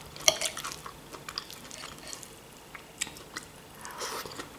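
A person chewing a mouthful of food, with soft wet mouth sounds and a few sharp clicks, the loudest about a third of a second in and another at about three seconds.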